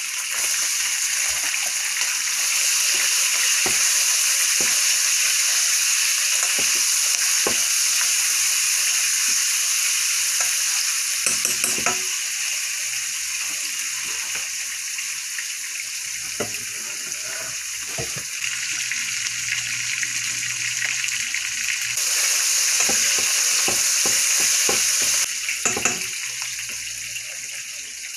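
Sliced onions sizzling as they fry in oil in a skillet, a steady hiss that eases off in the middle and comes back up, with scattered light clicks of a utensil stirring them.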